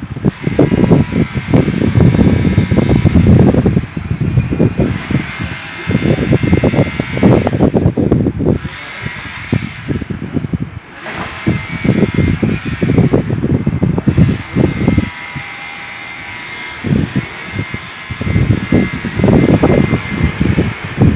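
Demolition hammer breaking concrete, its rapid hammering coming in runs of one to three seconds with short pauses between, over a steady faint high whine.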